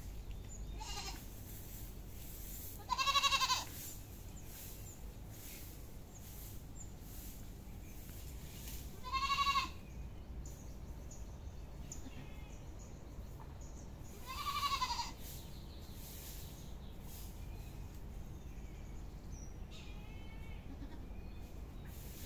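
Goat bleating: three loud, wavering bleats several seconds apart, with fainter bleats near the start and near the end, over a steady low hum.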